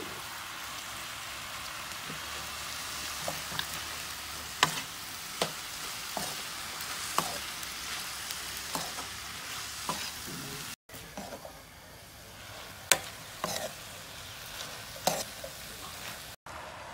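Beef and leafy greens stir-frying in a steel wok: a steady sizzle, with a metal ladle clanking and scraping against the pan every second or two.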